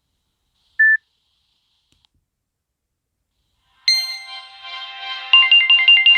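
Ringtones of a SoftBank 705NK (Nokia N73) mobile phone played through its loudspeaker. A single short high beep sounds about a second in; after a pause of about three seconds the next built-in ringtone starts, an electronic melody that opens on a chord and then runs into quick repeated high notes.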